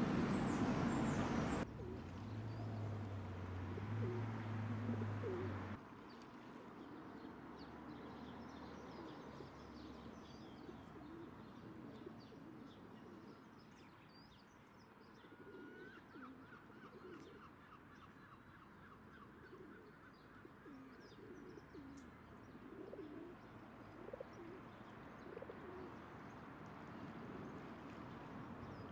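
Faint outdoor birdsong: small birds chirping and singing, with a short trill a little past halfway. Pigeons cooing low in the first few seconds.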